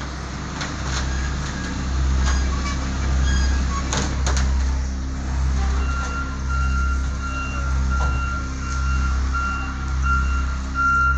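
A heavy machine's engine running steadily, swelling and easing about once a second, with a few sharp knocks in the first half. About halfway in, its reversing alarm starts beeping, about two beeps a second.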